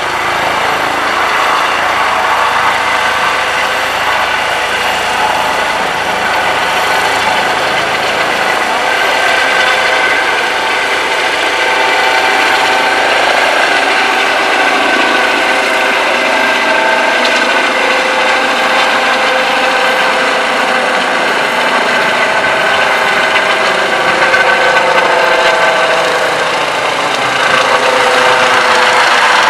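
Eurocopter EC135 air-ambulance helicopter lifting off and climbing away overhead: loud, steady turbine whine and rotor noise. Near the end its tones slide in pitch as it passes over.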